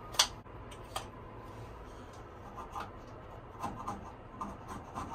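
A thin flathead screwdriver scraping old, burnt gasket remnants off the metal of a Navien NR-180 tankless water heater. There is a sharp click just after the start and a lighter one about a second in, then a run of short scraping strokes in the second half.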